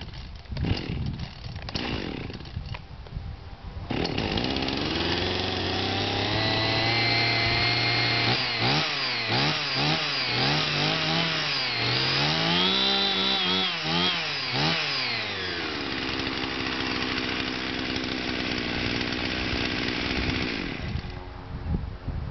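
Chainsaw engine catching about four seconds in after some clattering, running steadily, then revved up and down repeatedly in short blips before settling back to a steady run. It cuts off near the end.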